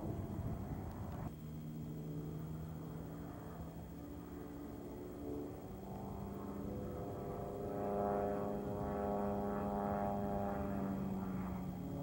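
Small single-engine propeller airplane's engine running at low power as the plane rolls along the runway, getting louder from about halfway through as it comes closer.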